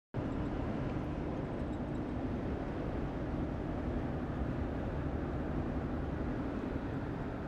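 Steady road and engine noise heard inside a moving car: a low rumble with a faint steady hum.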